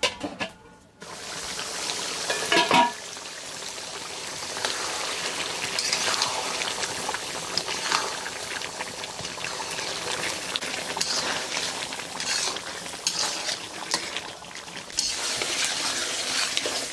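Beef curry sizzling and bubbling in a black iron kadai, stirred and scraped with a metal spatula. A metal clank with a short ring comes about two and a half seconds in as the pot's metal lid is lifted off.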